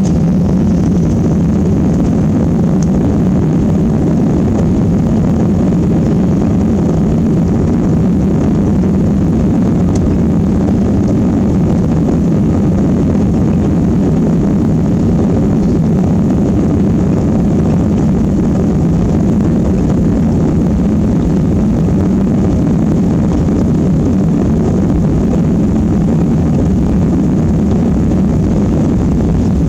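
Jet airliner engines at takeoff power, a loud, steady low rumble that does not rise or fall.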